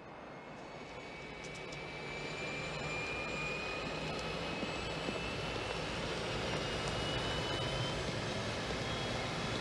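Twin-engine light airplane's engines running up: a steady rush of engine noise that grows louder, with a high whine slowly rising in pitch.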